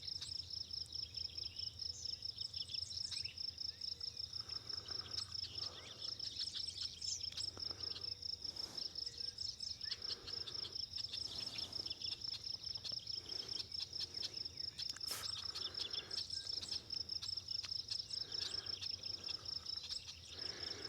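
Insects trilling in a steady, high-pitched, rapidly pulsing chorus, with a few faint bird chirps over it.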